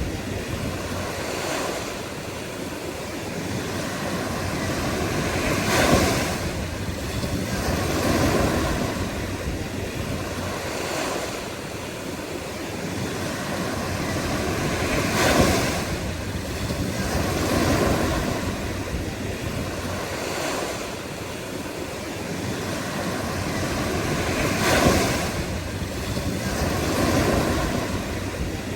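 Ocean surf: waves breaking and washing in a continuous rush that swells and ebbs, with the largest breakers peaking about every nine to ten seconds.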